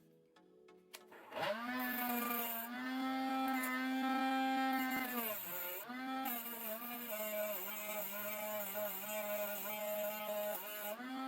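A small motor spins up about a second in and runs at a steady pitch, slows and drops out for a moment near the middle, then picks up again and runs with a slight regular wobble before winding down at the end.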